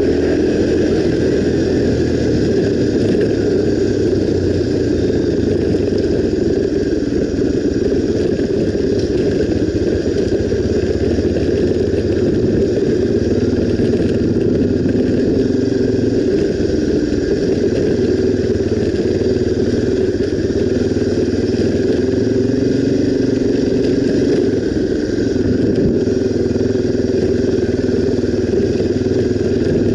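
Honda XR 250 Tornado single-cylinder four-stroke motorcycle engine running steadily while riding.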